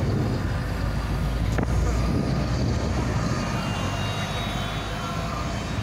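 Road traffic at an intersection: a city bus and a small Opel Corsa hatchback drive past, a steady rumble of engines and tyres. A faint high whine joins in about halfway through.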